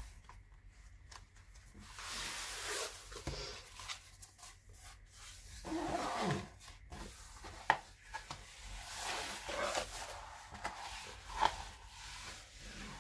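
Tightly rolled diamond-painting canvases, covered with plastic film, being unrolled and smoothed flat by hand: uneven rustling and crinkling of the film and canvas, with two sharp clicks in the second half.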